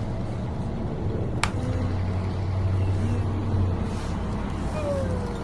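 Radio-controlled truck running with a steady low drone, broken by one sharp click about a second and a half in.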